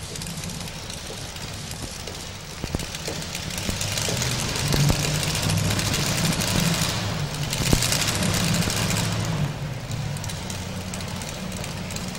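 Modified 4x4 pulling truck's engine idling at the starting line, getting louder for about five seconds midway, then settling back to idle.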